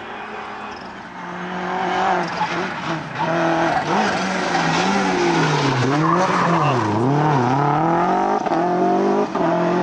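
Rally car engine growing louder as the car approaches, its revs then dipping and flaring several times in quick succession before holding high and steady near the end.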